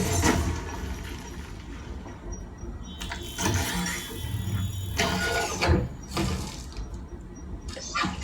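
Sound effects from a Blu-ray film soundtrack playing: a steady low drone under several sudden loud bursts about three, five and six seconds in.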